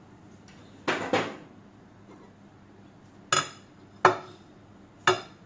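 Bowls, a ladle and spoons being set down on a dining table: a double clatter about a second in, then three sharp separate clinks of crockery and cutlery.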